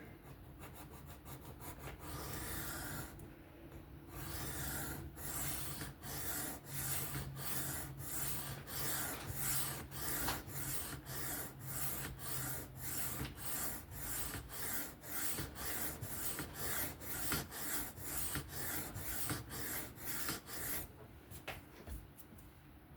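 A Kizer Mini Towser K's 3V steel blade being stroked freehand across a 1200-grit sharpening stone in forward passes: a longer stroke, then a steady run of short scraping strokes, about two a second.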